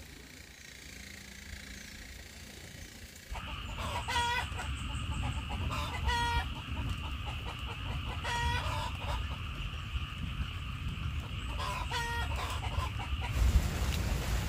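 Rain falling steadily, starting about three seconds in, with a chicken calling four times in short, separate calls.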